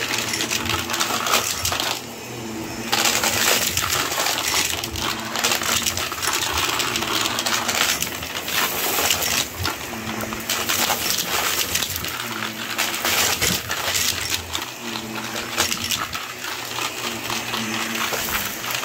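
Shark vacuum cleaner running over a carpet, its motor a steady hum while dry debris rattles and crackles up the nozzle into the clear bin. It goes briefly quieter about two seconds in.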